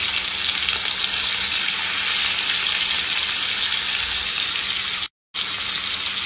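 Chunks of fish sizzling steadily in hot olive oil in a frying pan as they brown. The sizzle cuts out completely for a split second about five seconds in.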